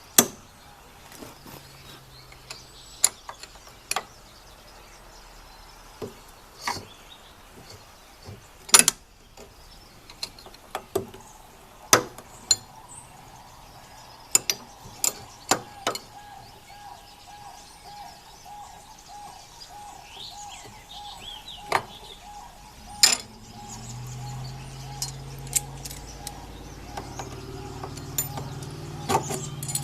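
Sharp metallic clicks and clinks of hand tools, vise-grip pliers and a wrench, on a 1/2 inch bolt of a snowblower gearbox, coming singly every second or two. A low steady hum comes in near the end.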